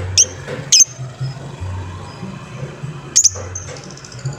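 Lovebird calling in short, sharp, high-pitched squeaks, three of them: one near the start, one just under a second in, and one about three seconds in, over a low background drone.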